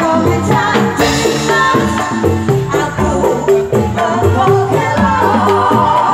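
Live band music through loudspeakers: electronic keyboard and drums with a woman singing.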